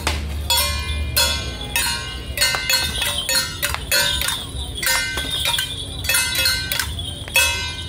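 Taiwanese temple procession percussion: metal gongs and cymbals struck in a fast, uneven rhythm, each stroke ringing on, accompanying a troupe's dance.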